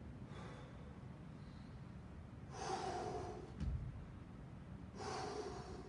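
A man breathing out audibly and evenly while holding a strenuous exercise: two clear breaths about two and a half seconds apart, a fainter one near the start. A single dull thump falls between the two clear breaths.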